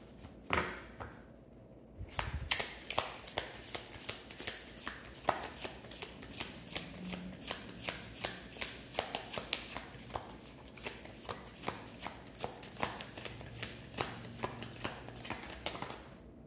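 A tarot deck being shuffled by hand: a steady run of soft card clicks, about three a second, starting about two seconds in and stopping just before the end.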